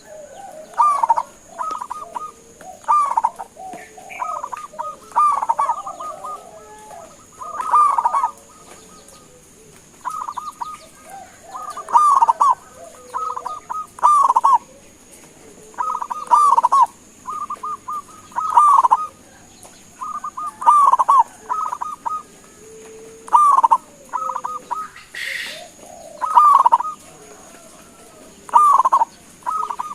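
Zebra dove singing: short, rapid, staccato cooing phrases, repeated every second or two, over a steady high-pitched hiss.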